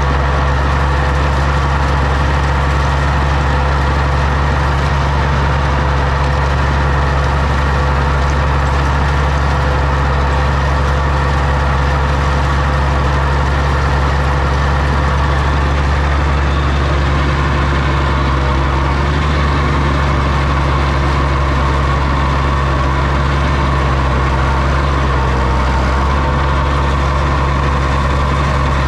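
Oliver OC-6 crawler tractor's engine running steadily, a deep low-pitched sound with little change in speed, its tone shifting slightly about halfway through.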